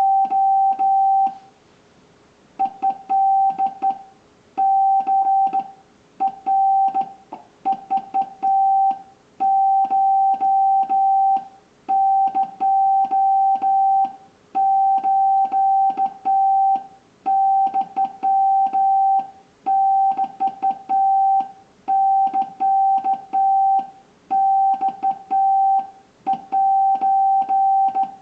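Japanese (wabun) Morse code sent by hand on a HI-MOUND HK-808 straight key: a steady mid-pitched sidetone beeps in dots and dashes, grouped into characters with short gaps between them. Faint clicks from the key's contacts mark each stroke.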